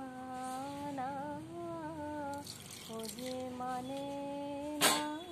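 A woman humming a slow melody in long held notes. There is one sharp knock near the end.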